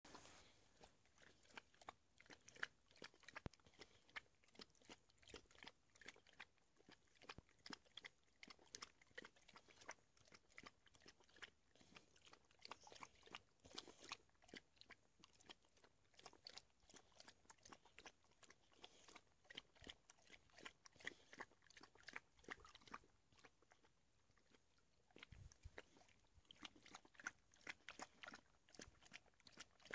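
Rottweiler puppy lapping water with its tongue: a fast, faint run of wet clicks and slurps, several a second, with a short pause near the end.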